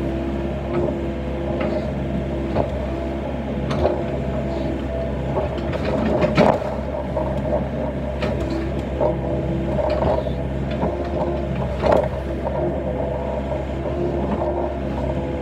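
Excavator's diesel engine running steadily, with a whine that comes and goes as the boom and arm move. A few sharp knocks stand out, loudest about six and twelve seconds in.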